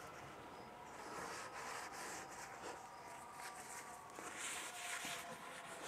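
Faint rustling and rubbing of a folded paper towel wiping a thin layer of oil around the inside of a hot cast-iron Dutch oven as it is being seasoned.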